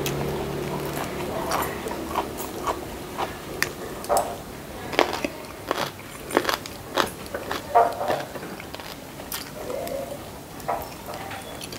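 Close-up eating sounds: a person biting and chewing fried fish and rice, with irregular wet clicks and crunches. The loudest crunch comes about eight seconds in.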